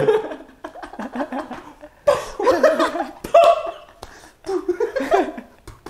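Several men laughing together in bursts, with short breaks between them.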